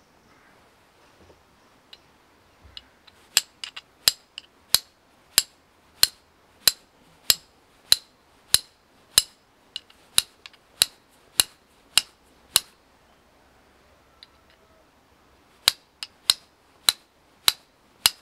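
Steel fire striker struck repeatedly against flint, throwing sparks onto a tinder bundle of dead fireweed: sharp clinks at about one and a half a second, a run of some seventeen strikes, a pause of about three seconds, then another run of strikes near the end.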